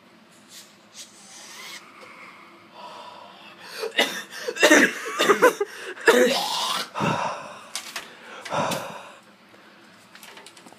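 A boy's loud gasping breaths and coughs, starting about four seconds in, as after drawing on a vape.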